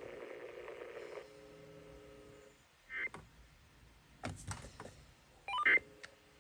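Emergency Alert System end-of-message code: three short squawking data bursts about a second and a quarter apart, heard over a broadcast receiver, signalling that the alert message is over.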